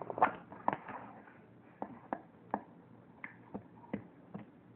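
Slime being handled and poked by hand: about a dozen sharp, irregular clicks and pops.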